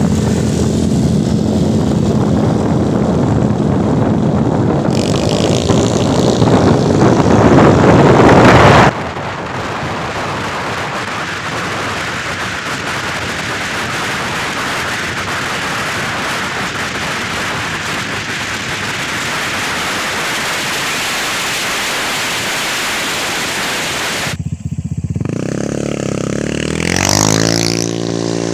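Honda Vario 150 scooter engine and CVT drive pulling hard on a test ride, getting louder for several seconds until it cuts off suddenly. Steady wind and road rush follows, and near the end an engine revs up and eases off.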